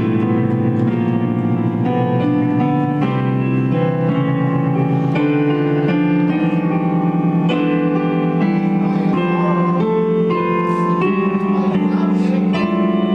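Piano sound played live on a digital stage keyboard: sustained chords, changing every second or so, under a melody line.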